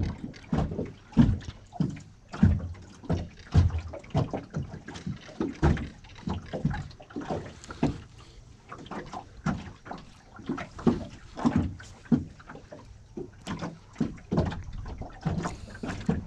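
Water lapping against the hull of a small boat moored at the bank, making irregular low slaps and knocks, one or two a second.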